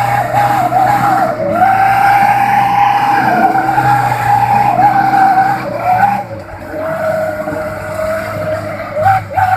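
Rear differential of a light single-axle truck whining loudly while driving: a high, wavering whine over the steady drone of the engine. The whine drops in pitch and eases about six seconds in. The owner says the differential sounds as if it is about to fall apart.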